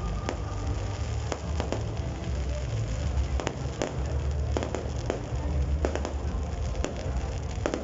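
Aerial fireworks bursting: a dozen or more sharp bangs and crackles at irregular intervals, some in quick pairs, over a steady low rumble.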